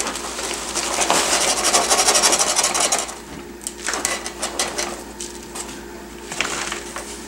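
Potting mix pouring from a plastic bag into a plastic plant pot: a dense, grainy rustling hiss for about three seconds, then scattered rustles and crinkles of the bag as it is tipped again and set down.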